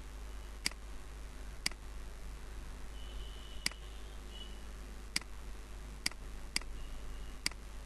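Computer mouse button clicked seven times at uneven intervals, sharp short clicks, over a steady low hum.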